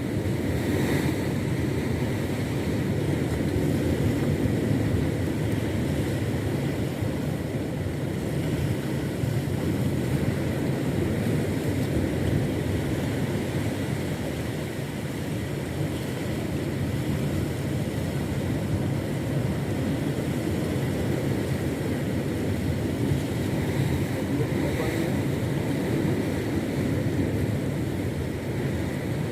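Small fishing boat's motor running steadily under way, a continuous low rumble.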